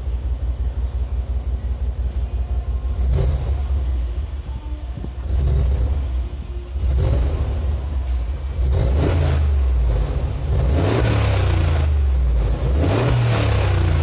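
Mercedes-Benz G500's V8 through a Fi Exhaust valvetronic cat-back with the exhaust valves closed, revved while parked. It idles steadily at first, is blipped briefly about three times, then revs in three longer pulls in the second half.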